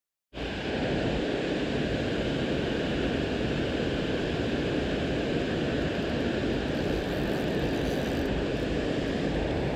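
Steady rushing outdoor noise that cuts in abruptly from silence a moment in and then holds even.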